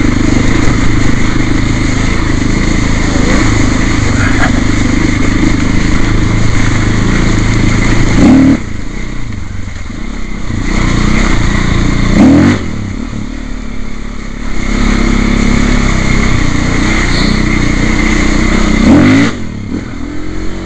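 Trail motorcycle engine running under load while riding. Three times the revs climb briefly and then drop off sharply before picking up again.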